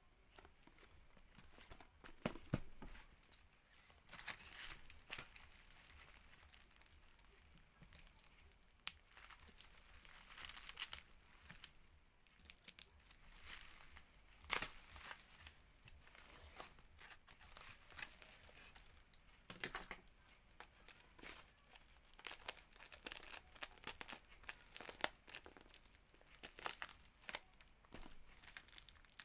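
Packaging being torn open and crinkled by hand: irregular tearing and rustling in short spurts.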